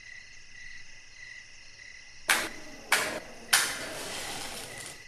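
Crickets chirring steadily in a night chorus. In the middle come three short bursts of noise about half a second apart, the last one trailing off for over a second.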